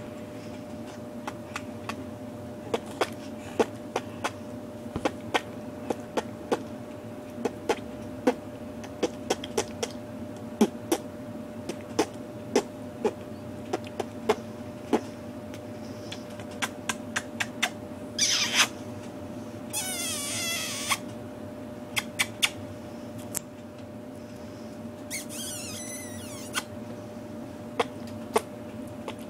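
Soft mouth clicks and lip smacks at an uneven pace, with a short breathy hiss and two brief high squeaky sounds that fall in pitch past the middle, over a faint steady hum.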